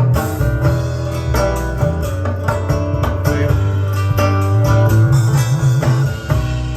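Recorded music with plucked guitar over a strong bass line and a steady beat, played back through a hi-fi system.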